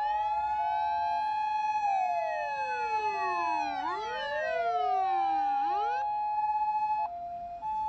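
Several fire-engine sirens wailing at once, each rising and falling over about two seconds, with a two-note hi-lo siren alternating beneath them. The wailing stops about six seconds in, leaving the hi-lo tone.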